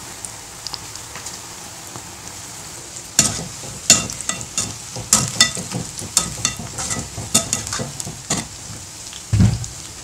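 Cabbage pakoda sizzling as it deep-fries in hot oil in a metal kadai. From about three seconds in, a metal spoon stirs and scrapes against the pan with repeated sharp clinks, and there is a dull thump near the end.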